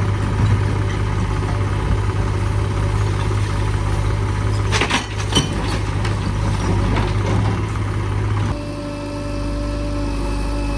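Diesel engine of heavy machinery running steadily, with a few sharp knocks about five seconds in. About eight and a half seconds in the sound changes abruptly to a different, steadier engine hum.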